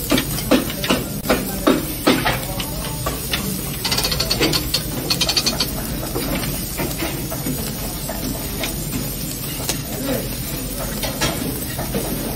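Kebab meat sizzling on skewers over a charcoal grill, with repeated sharp clacks as the metal skewers are turned and knocked against the grill's edge. A quick run of fine ticking comes about four seconds in, over a steady hiss of fat on the coals.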